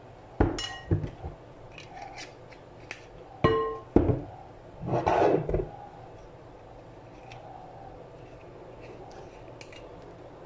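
Glass bottles and a glass mixing bowl handled on a kitchen counter: a few knocks and clinks in the first four seconds, two of them with a short glassy ring, then a brief scrape about five seconds in.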